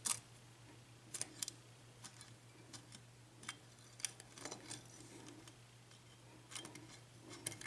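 Faint, irregular clicks and ticks of a lock pick working the pin stacks inside an Assa six-pin oval cylinder lock during single-pin picking, with the plug held in a false set.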